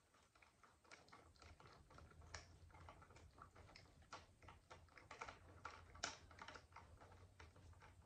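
Socket ratchet clicking faintly in quick, irregular runs as bolts on an outboard engine's powerhead are turned, with one sharper click about six seconds in.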